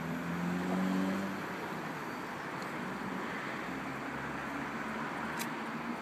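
Steady street traffic noise, with a vehicle engine hum swelling and fading in the first second or so. About five and a half seconds in, a single sharp click as a disposable lighter is struck.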